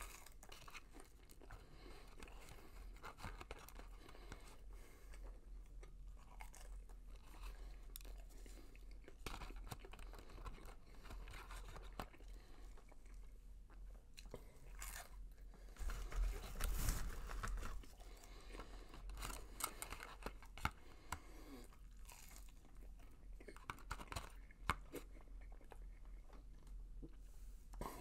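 A person chewing breaded McDonald's Chicken McNuggets close to the microphone, with crunching bites and wet mouth noises throughout. It gets louder for a moment a little past the middle.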